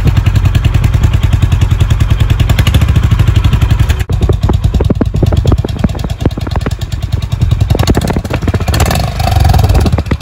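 Exhaust note of a Honda H'ness CB350's single-cylinder engine idling at the silencer, a steady run of low exhaust pulses. The note briefly gets louder and fuller about nine seconds in.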